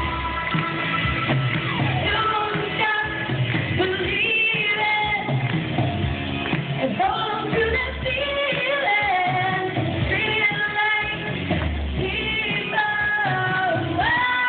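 A woman singing a pop song into a microphone over guitar backing music.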